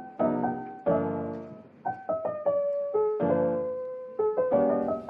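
Soft piano background music: chords and single notes struck in a relaxed rhythm, each ringing and fading.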